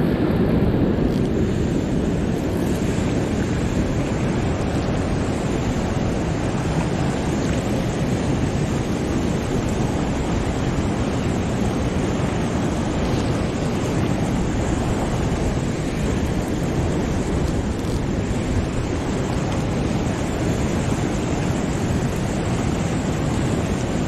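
Fast white water rushing through a dam spillway: a steady, unbroken rush of water.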